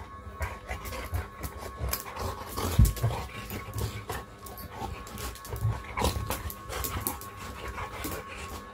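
Dog panting during rough play between a German Shepherd and a Labrador Retriever, with scuffling sounds and a loud bump about three seconds in.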